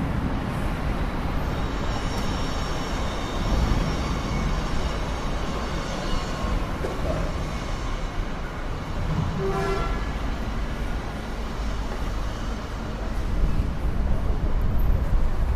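Steady rumble of road traffic, with a short horn toot about ten seconds in.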